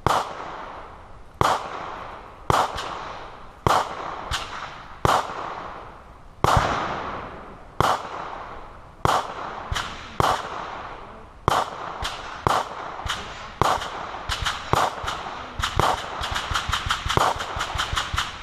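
Repeated gunshots at a shooting range, each with a short echo. Single shots come roughly a second apart, then a rapid string of shots follows near the end.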